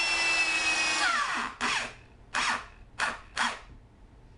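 Corded electric drill driving a long wood screw: the motor runs steadily with a high whine, spins down about a second in, then gives four short bursts as the trigger is blipped to seat the screw.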